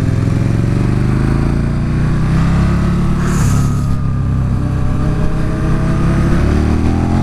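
Yamaha R6 inline-four engine pulling out of a corner onto a straight, its pitch rising steadily as the bike accelerates, with wind rushing over the helmet camera.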